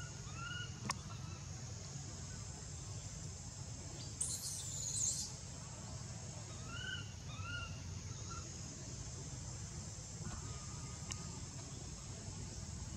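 Outdoor tree-canopy ambience: a steady high insect drone, with short rising-and-falling calls in pairs near the start and again about seven seconds in. About four seconds in comes a brief shrill high call, the loudest sound.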